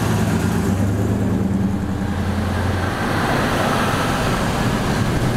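Cars driving past one after another at low speed: a steady low engine drone from a close-passing classic car that fades about three seconds in, giving way to the engine and tyre noise of the next car.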